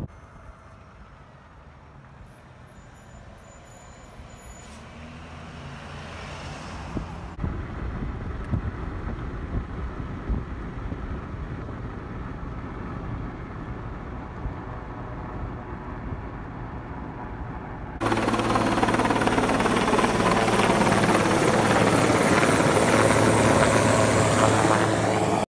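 Road noise from a moving vehicle builds slowly, then about 18 s in a helicopter flying low overhead cuts in suddenly, loud and steady with a deep rotor hum, until it stops abruptly at the end.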